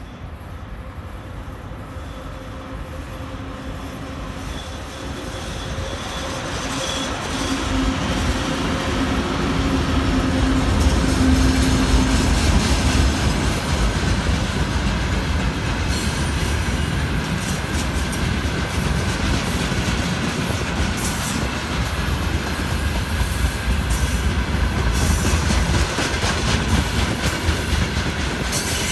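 VL11M three-section electric locomotive hauling a freight train past at speed: its low hum grows as it nears and passes about twelve seconds in, then the loaded wagons roll by with a steady rumble, clickety-clack over the rail joints and thin high wheel squeal.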